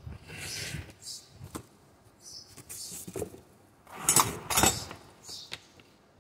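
Handling noise from a plunge router and its accessories: scattered clicks and rustles, with two louder sharp metal clinks a little after four seconds in. The motor is not running.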